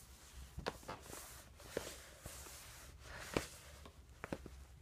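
Faint scattered clicks and rustles of a phone being handled right up against a leather saddle and its fleece pad, over a low rumble; the loudest click comes a little past three seconds in.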